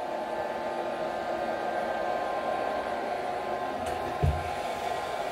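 Robot vacuum cleaner running with a steady motor whir; a single dull bump about four seconds in.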